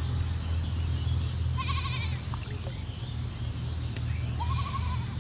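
A goat bleating twice: a wavering call about two seconds in and a shorter one near the end, over a steady low rumble.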